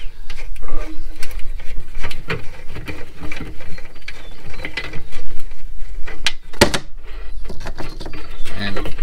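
Fishing-rod holder being wiggled and twisted on its mount on a boat's side rail: repeated clicking and rattling, with a sharp knock about two-thirds of the way through. The holder is stuck and hard to work loose.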